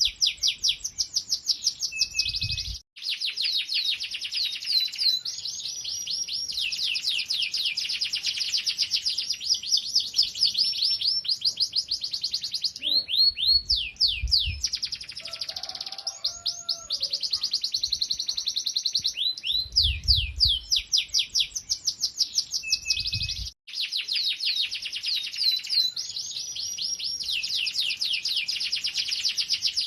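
Domestic canary singing without pause: long, fast trills of rapid, repeated down-sweeping high notes, broken only by two brief gaps, about three seconds in and again near the end. A low rumble sits under the song at the start and in the middle.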